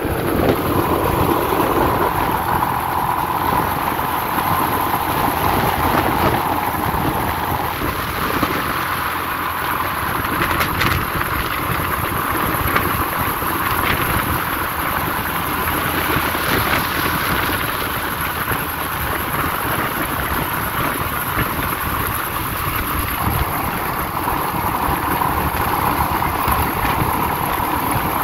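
Steady running noise of a motorbike ride on a road: engine running evenly under road and wind noise.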